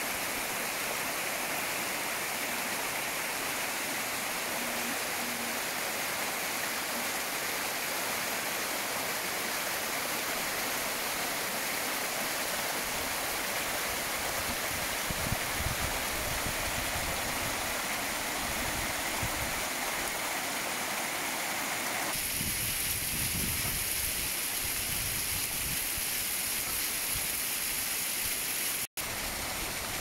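Bigar waterfall and its stream rushing and splashing over rocks in a steady, even roar of water. Occasional low buffeting of wind on the microphone in the second half.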